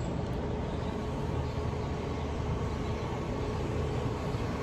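Steady outdoor city ambience: a continuous hum of traffic, with a faint steady tone running through it.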